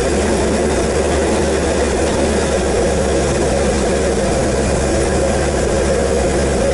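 4WD vehicle's engine running at a steady pace as it drives up a dirt track, a constant low drone with no change in pitch.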